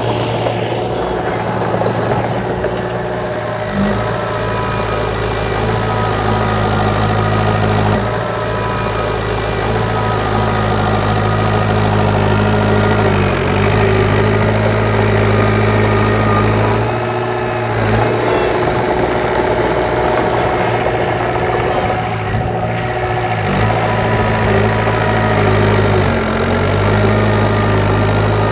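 Heavy construction machine's diesel engine running steadily, its note dipping briefly every few seconds.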